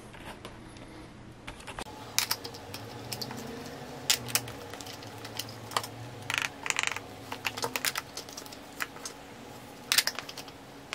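Light irregular clicks and knocks of a plastic Penny skateboard being picked up and handled, with its wheels and trucks knocking.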